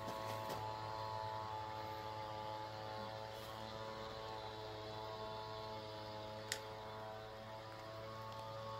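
A steady low hum made of several even tones, with one sharp click about six and a half seconds in.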